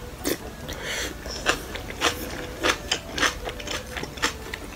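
Close-miked mouth sounds of a person eating a spoonful of soft rice and beef in beef-bone soup: a rapid, irregular series of short wet smacks and chewing clicks.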